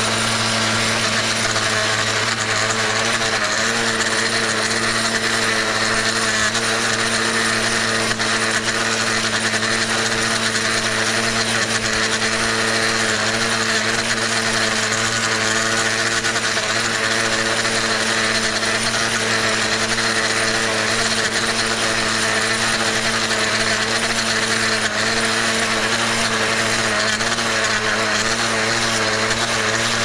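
Blade edger (a trimmer fitted with an edging blade) running steadily while cutting the grass edge along a curb and sidewalk, a constant machine drone over a broad hiss with no letup.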